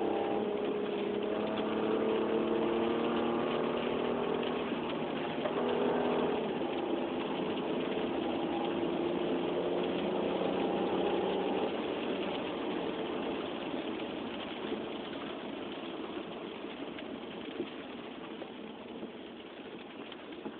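Opel Vectra 3.2 V6 engine running under way with its automatic gearbox, its note shifting about two and six seconds in and then dying down to a quieter run after about twelve seconds. The engine is one that logs misfire codes (P0300, P0304, P0306).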